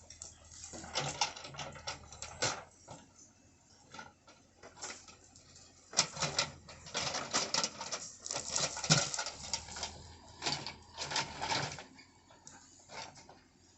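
Irregular clatter of knocks and scrapes, like stones and metal striking each other as a bucket digs, in dense clusters between about six and twelve seconds in.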